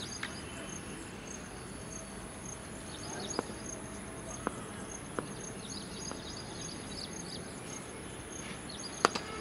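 Insects chirring steadily in the grass, a thin high whine with evenly repeated chirps, over open-air ambience. About nine seconds in comes one sharp crack, the cricket bat striking the ball.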